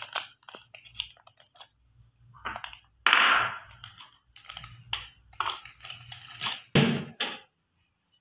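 Irregular rustling and scraping handling noises as the topped sandwiches on the baking tray are handled and moved, over a faint steady low hum.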